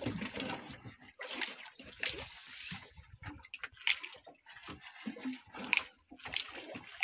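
Water sloshing and slapping against a boat's hull, with irregular sharp knocks about once a second.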